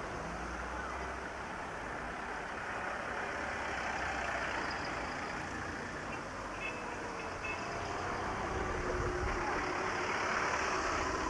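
A line of cars driving slowly past one after another, engines running and tyres on the road, getting a little louder near the end as one passes close.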